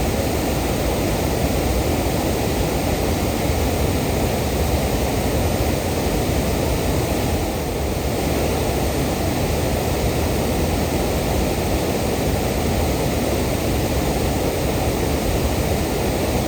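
Waterfall's water rushing and falling onto rock: a steady, loud, even roar that holds unchanged throughout.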